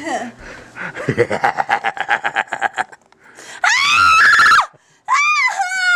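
A woman shrieking: a quick pulsing cry, then two loud high-pitched screams about a second apart, the second running on. They are screams of protest at something pushed onto her head, which she wants taken off.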